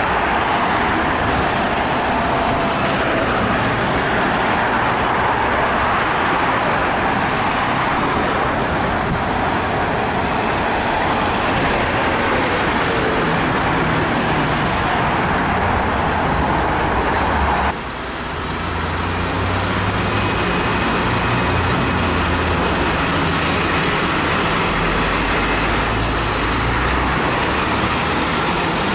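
Street traffic noise from passing road vehicles. After a sudden break about two-thirds of the way through, a low, steady engine sound takes over.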